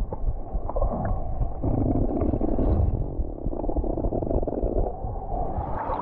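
Muffled, low rumbling rush of a mountain stream heard with the microphone underwater, with scattered small clicks and knocks. The sound turns brighter and more open near the end as the camera comes up out of the water.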